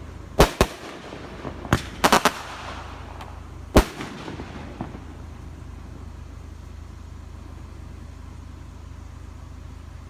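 Consumer fireworks going off: about six sharp bangs in the first four seconds, some in quick pairs, the loudest a little before four seconds in. A steady low hum carries on after the bangs stop.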